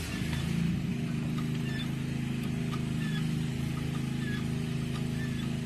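Engine of heavy equipment used to move boulders, coming up to speed at the start and then running steadily.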